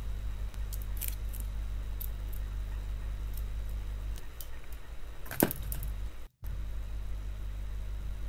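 Faint clicks and small taps of hands working a wire and the metal-cased circuit board of a laptop charger, with one sharper click about five seconds in, over a steady low hum. The sound cuts out for a moment a little after six seconds.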